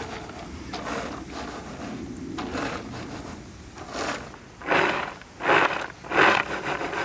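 Chopped walnuts rattling and sliding across a round wooden board as it is tossed, in a run of short swishes about two-thirds of a second apart that start about halfway through and are the loudest sounds.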